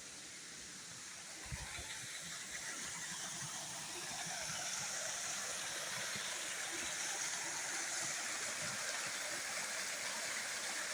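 Water pouring over an old sawmill dam: a steady rushing hiss of falling water that grows louder over the first few seconds, then holds even.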